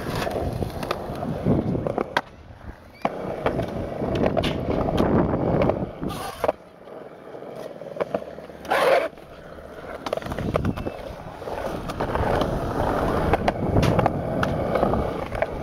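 Skateboard wheels rolling on concrete with a rough rumble, broken by many sharp clacks of the board popping, hitting ledges and landing. The rolling drops away briefly twice, and a loud crack sounds about nine seconds in.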